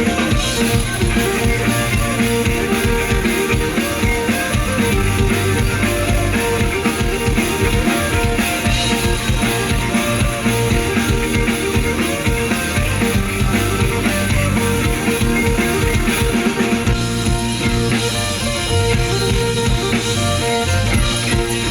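Instrumental rock music: a band playing drum kit and guitar with bass, a steady beat throughout.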